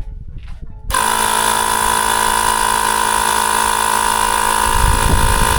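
A small motorised air pump switches on abruptly about a second in and runs steadily with a hum and hiss, inflating the patched bicycle inner tube to check it for further leaks. A low rumble joins near the end.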